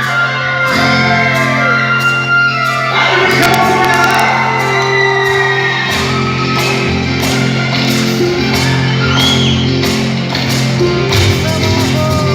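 Live band music playing through a PA in a large hall, with shouts and whoops from the audience.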